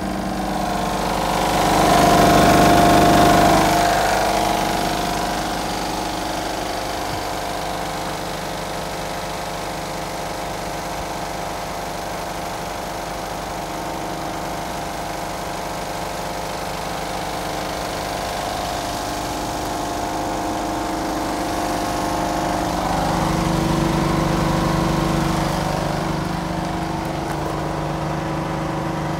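Mercedes-Benz Actros 2543 tractor unit's 12.8-litre straight-six diesel idling steadily. It gets louder for a couple of seconds about two seconds in, and again for a few seconds later on.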